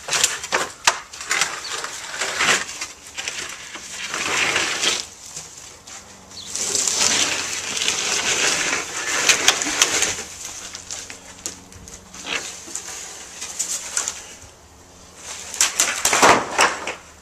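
Wooden fence panel being torn down and hauled away: boards cracking and snapping, then long scraping and rustling as the panel is dragged, with another run of sharp snaps and knocks near the end.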